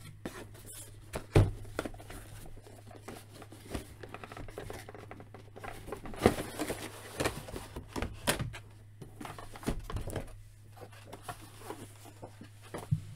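Cardboard toy box and plastic blister tray being handled and slid apart: scattered rustles, scrapes and light knocks, with one sharp knock about a second and a half in the loudest. A faint steady low hum runs underneath.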